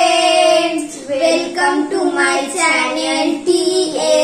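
Two young girls singing together, a short sung greeting with long held notes broken by brief pauses.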